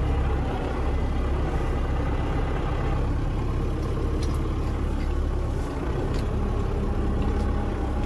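Belarus tractor's diesel engine running steadily while driving, heard from inside the cab, with a few faint clicks partway through.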